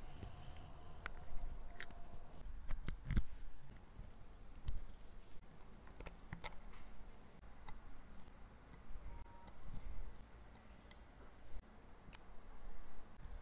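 Small, sparse metallic clicks and ticks of watchmaker's tools: hand levers, then tweezers and a fine screwdriver working on the parts of a Rolex calibre 3135 movement. A faint low hum lies under them.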